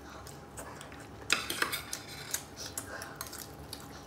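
Metal spoon and fork clinking and scraping against a dinner plate, with one sharp clink about a second in and a few lighter taps after it.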